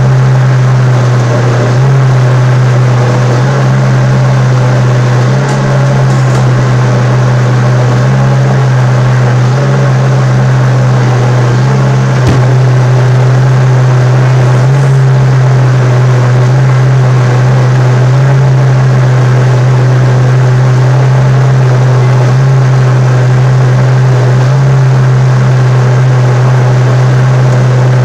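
Countertop blender motor running loud and steady, mixing a thick batter of quinoa, chia seeds, water and olive oil.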